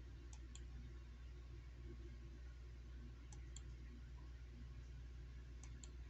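A ceiling fan running, with faint paired clicks about a quarter second apart that come round roughly every two and a half seconds, over a steady low hum.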